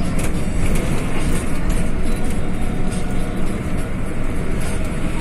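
Mercedes-Benz-engined bus under way: steady engine and road noise.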